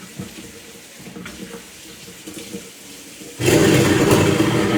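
Kitchen tap turned on, water running hard into the sink for about two seconds, starting suddenly after a stretch of faint background.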